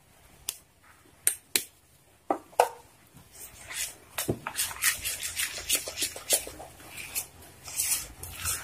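Metal spoon stirring thick rice-and-urad-dal batter in a bowl to work in food colouring. A few separate clicks of the spoon come first, then from about three seconds in a continuous run of scraping and stirring.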